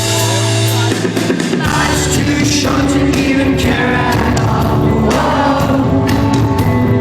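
Live rock band playing with singing, loud throughout; the low end fills out about a second and a half in.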